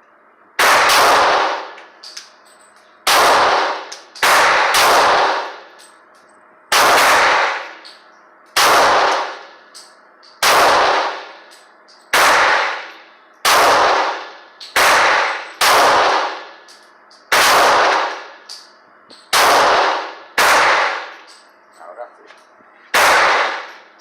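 A Glock .40 pistol firing about fifteen single shots at an uneven slow pace, one every one to two and a half seconds, each shot ringing out with a short echo.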